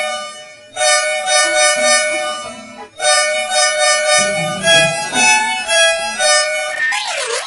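Bus horn sounding a two-note chord in long blasts of about two seconds each with short gaps between. From about four and a half seconds in, the same horn steps through several pitches like a short tune, and near the end a wavering, sweeping version of the horn begins.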